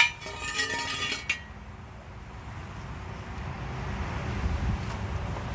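A sharp metal clank followed by about a second of ringing metallic clinking that ends in a second click, then a faint low rumble that slowly grows.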